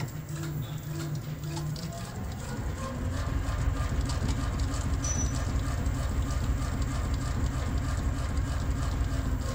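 Magnetorheological shock absorber stroking on a damper test bench over the bench's steady hum. About two seconds in, a rapid, dense knocking sets in and keeps going, a sign of a problem in the damper.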